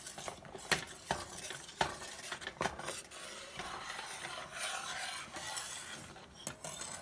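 A spoon stirring semolina into boiling water in a pan, scraping with several sharp clinks against the pan. The semolina is being stirred as it goes in, to keep it from forming lumps.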